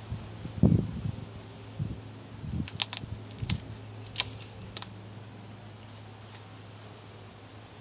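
Handling noise from teleprompter parts and packaging on a wooden table: a few soft knocks, the loudest about a second in, and a handful of sharp ticks and rustles up to about five seconds in. A steady high-pitched drone runs underneath.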